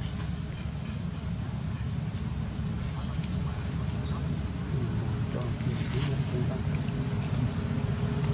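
Steady, high-pitched drone of a daytime insect chorus, with a low rumble beneath it.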